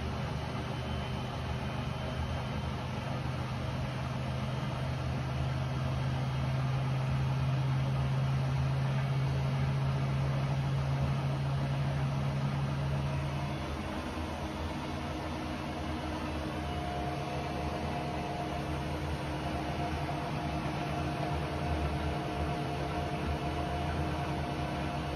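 Hotpoint Ariston AQ83D 29 front-loading washing machine running its spin cycle: a steady motor and drum hum that drops away about halfway through, after which a thin higher whine sets in.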